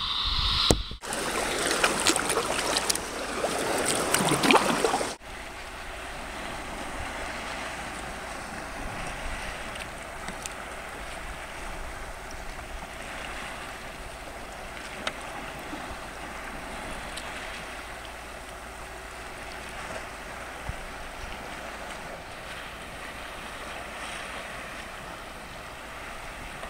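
Sea kayak on open water: a few seconds of louder splashing of the paddle and water against the hull with wind on the microphone, then, after a cut, a steady, quieter lapping of small waves.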